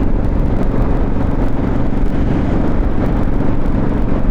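Motorcycle engine running at a steady speed while riding, with wind and road rumble, loud and unchanging.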